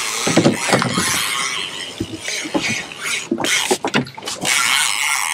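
Fishing reel's clicker and drag letting out line as a hooked fish runs: a steady rasping buzz, with a few knocks over it.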